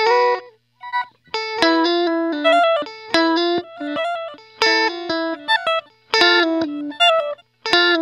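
Electric guitar notes played through a Line 6 HX Stomp's Glitch Delay at whole-note time. The notes and their repeats come in chopped, stuttering fragments that cut off abruptly, with short silent gaps between them.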